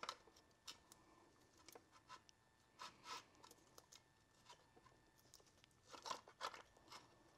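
Faint, scattered clicks and light knocks of metal parts being handled inside a Porsche 915 transaxle's bellhousing at the clutch fork, with a small cluster of them about six seconds in.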